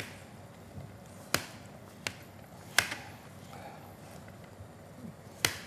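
A kitchen knife knocking against a hard kitchen surface while boiled potatoes are peeled: about five sharp knocks, spaced irregularly a second or more apart, with faint handling noise between them.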